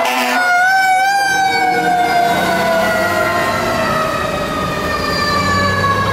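Fire engine's Federal Q mechanical siren coasting down in one long, slowly falling wail, with the truck's engine running underneath. In the first half second a steady horn-like tone breaks off.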